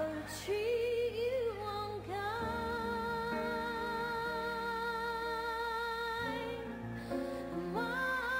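Slow song playing: a solo voice sings long held notes over sustained accompaniment, wavering with vibrato about a second in, then holding one note steady for about four seconds before a new phrase begins near the end.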